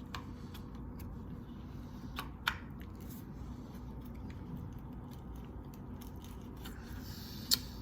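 Hands working a stiff plastic part into an RC car chassis: scattered light clicks and rubbing, two sharper plastic clicks a little over two seconds in, and one loud sharp click near the end. The part is jammed and resisting being pushed into place.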